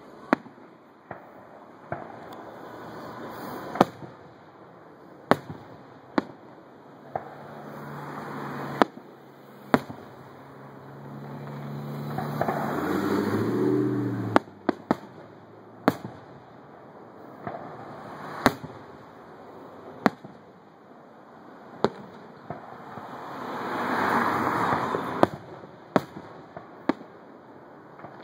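Aerial firework shells bursting: sharp bangs going off one after another at irregular intervals, with two longer swells of noise between them.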